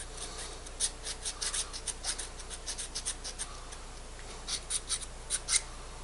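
A fine double-sided file scraping on a space heater thermostat's contact points, dressing them flat and parallel: an uneven run of short, light rasping strokes, several a second, with a few stronger strokes a little before the end.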